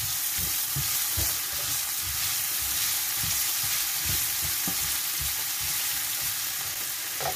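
Diced mixed vegetables sizzling in hot oil in a nonstick wok, stirred with a spatula that scrapes and taps against the pan about twice a second.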